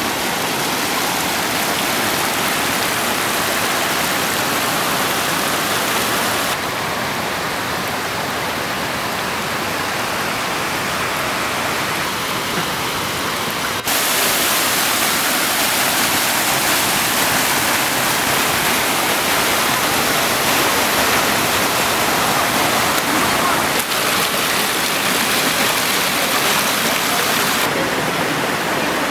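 Floodwater rushing over a road and gushing out of broken pavement and curbing: a steady, loud rush of water that changes abruptly in level and tone several times.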